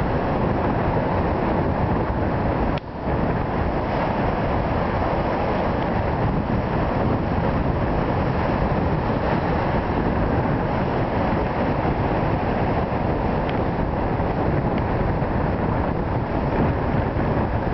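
Heavy storm surf crashing and washing over jetty rocks, heard as a continuous rushing noise, with strong wind buffeting the microphone. The sound drops out briefly about three seconds in.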